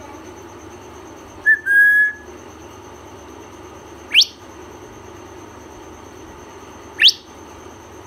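African grey parrot whistling: a short note and then a held steady note about a second and a half in, followed by two quick whistles that sweep sharply upward in pitch, a few seconds apart.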